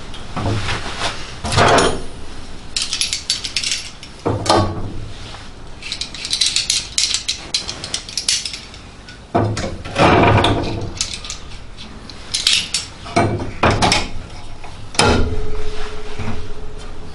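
Irregular metallic clinks, clatters and knocks as hand tools and bits of sheet metal are picked up and handled on a car's steel floor pan, the loudest knocks about two seconds in and about ten seconds in.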